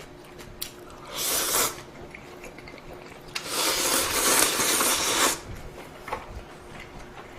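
Ramen noodles being slurped twice, a short slurp and then a longer one of about two seconds, with a few light clicks between.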